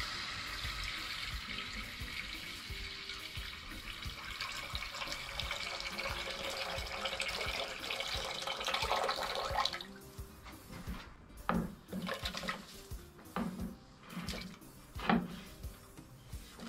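Water pouring from a copper kettle into a cast-iron pot, a steady splashing stream that stops abruptly about ten seconds in. Then come several short knocks as diced potatoes are slid off a wooden board into the pot.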